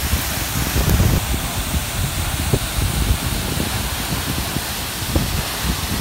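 Waterfall pouring into its plunge pool: a steady rush of falling water, with gusts of wind buffeting the microphone.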